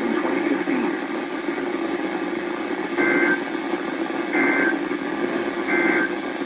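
Emergency Alert System end-of-message data code: three short buzzy two-tone bursts, about a second and a half apart, over steady radio static, marking the end of the broadcast flood warning.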